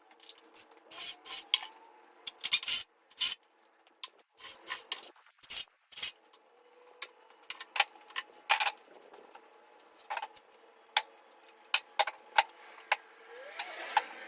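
Irregular sharp knocks and clacks of wooden boards and tools being handled on a bench build, some in quick little clusters. Near the end a distant siren starts to rise and fall.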